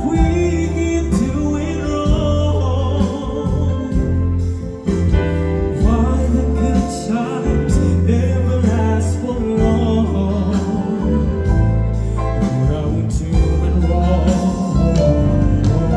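A male singer singing a slow ballad with long held notes over a karaoke backing track with a heavy bass line, through a PA system.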